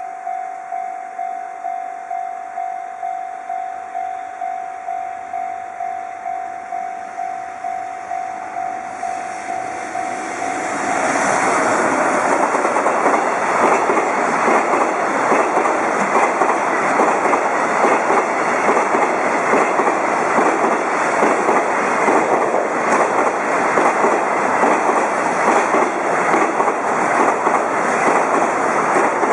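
A level-crossing warning bell dings steadily, about one and a half strikes a second. About eleven seconds in, a container freight train hauled by an EF210 electric locomotive reaches the crossing, and the loud, continuous wheel-on-rail rumble and clatter of the passing wagons drowns out the bell.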